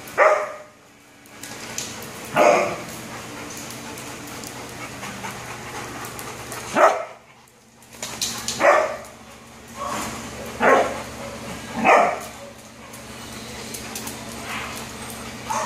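Dogs at play, giving about six short barks scattered through, play barks among wrestling dogs.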